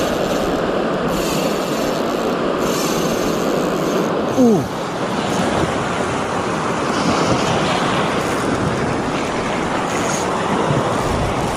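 Surf washing on the shore with wind on the microphone: a steady rush of noise. A short falling tone sounds once, about four seconds in.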